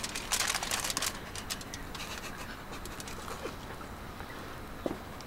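Aluminium foil crinkling for about a second as a cookie is pulled off a foil-lined baking tray, followed by a few small clicks. A bird calls briefly near the end.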